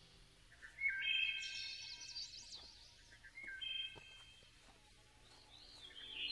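Background music in a quiet passage: a few high held notes stepping in pitch, with quick chirping flourishes above them.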